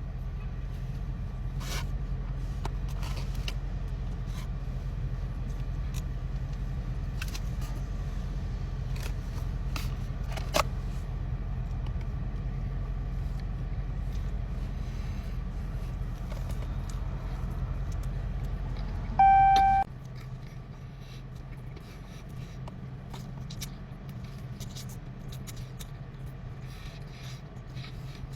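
Chewing and scraping sounds of a Big Mac being eaten, over a steady low hum. About two-thirds of the way through a single loud, short beep sounds, and the hum drops off right after it.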